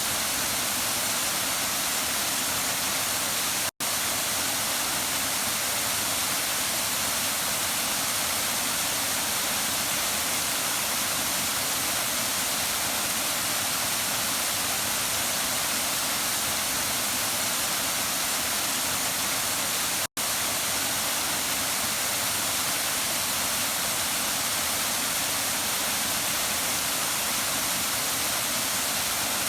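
Waterfall rushing, a steady hiss of falling water. It cuts out to silence for an instant twice, about four seconds in and again about twenty seconds in.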